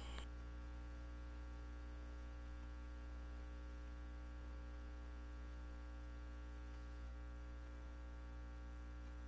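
Faint, steady electrical mains hum: a low drone with a stack of even overtones and nothing else.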